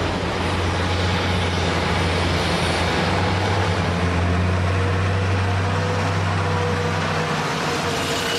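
A large engine running steadily: a low hum under a wash of mechanical noise, the hum dropping away about a second before the end.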